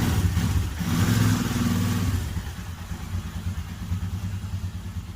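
Royal Enfield Himalayan's single-cylinder motorcycle engine revving for about two seconds, then running steadily and a little quieter.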